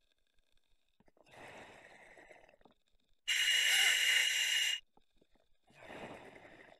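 Scuba diver breathing through a regulator in a full-face mask: a loud, high hiss of about a second and a half near the middle, between two quieter, lower rushes of air before and after it.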